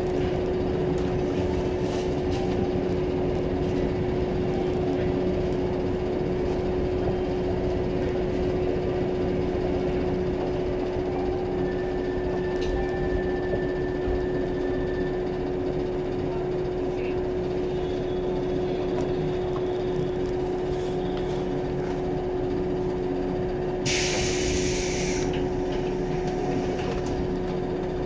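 JR 115 series electric train running, heard from inside the carriage: a steady rumble of wheels on rail with a constant hum. A brief hiss of about a second sounds near the end.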